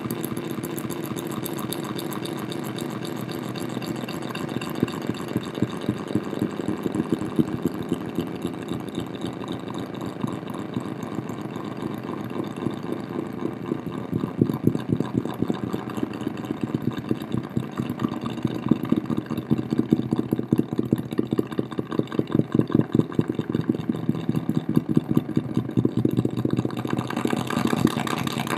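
Electronic buzzing drone from a solar cell picking up flashing strobe lights, fed through distortion and delay pedals to a small speaker: a rapid rattling pulse, with sharper irregular peaks from about five seconds in.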